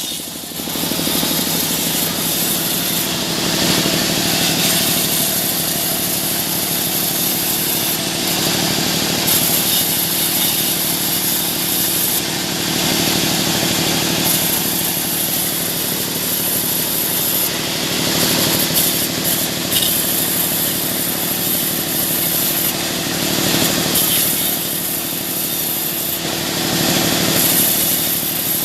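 Sawmill saw running and cutting through mahogany: a steady machine hum under a hissing cutting noise that swells and eases every few seconds as the blade works through the wood.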